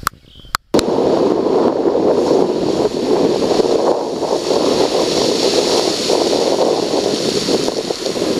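Wind buffeting the microphone over ocean surf and blowhole spray on a rocky shore, a loud steady rush. It starts abruptly just under a second in.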